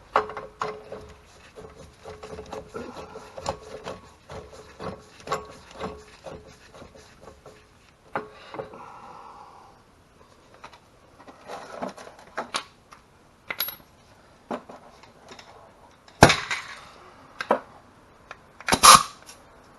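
Metal tool clicks and clinks as a castle nut is threaded and tightened onto an EZGO golf cart's rear axle shaft. The clicks are irregular and sometimes ring briefly. Two louder metallic clanks come near the end.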